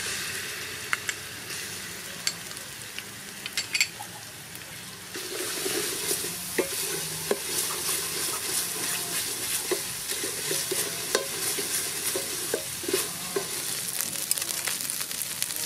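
Dried sweet pepper paste sizzling as it fries in hot oil in a metal pot, with a metal spoon clicking and scraping against the pot as it is stirred. The sizzle gets louder about five seconds in.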